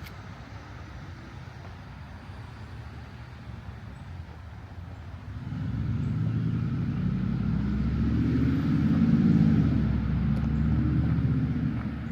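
A motor vehicle passing by: a low rumble that swells up about halfway through, peaks, and fades away near the end, over a steady background hum.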